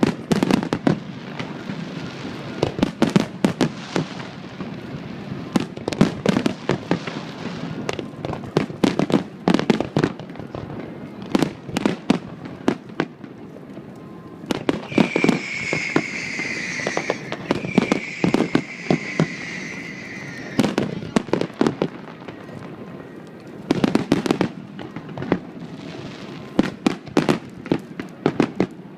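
Aerial fireworks display: sharp bangs and pops going off in rapid clusters throughout. About halfway through, a high whistle sounds twice, each falling slightly in pitch, typical of whistling fireworks.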